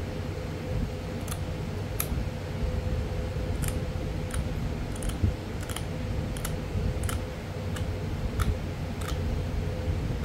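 Tiny flakes snapping off the edge of a Florida coral arrowhead as it is pressure-flaked to put fine micro serrations on it: about a dozen small, sharp, irregularly spaced clicks over a steady low hum.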